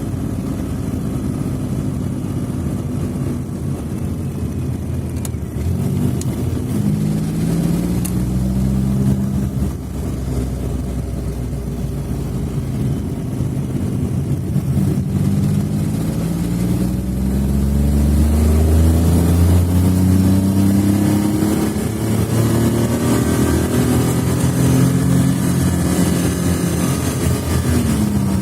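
Smart Fortwo 451 engine running, its pitch climbing in several long rises and dropping back between them as the engine speed rises and falls.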